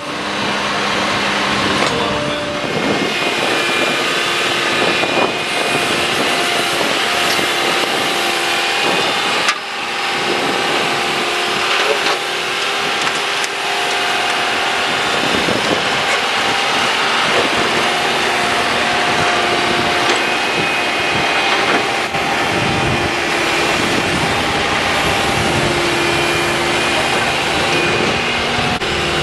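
A backhoe's engine running steadily with a held whine that shifts in pitch now and then.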